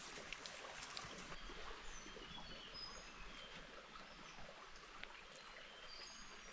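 Faint forest ambience with short, high bird chirps scattered throughout, and a few light clicks of wood being handled in the first two seconds.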